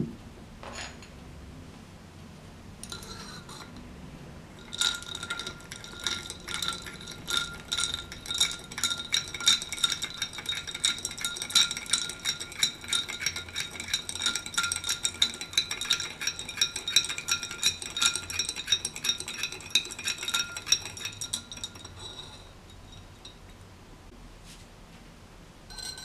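A thin metal stirrer clinking rapidly against the inside of a drinking glass of lemonade and ice as it is stirred, the glass ringing with each strike. A few single clinks come first, then fast continuous stirring from about five seconds in that stops a few seconds before the end.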